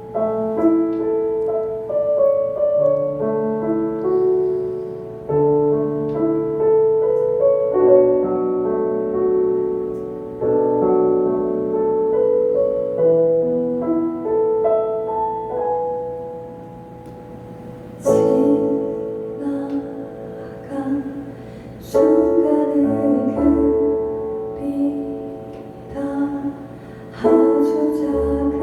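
Piano playing a slow, gentle melody of held notes; from about eighteen seconds in the playing grows fuller, with sharper, louder chords.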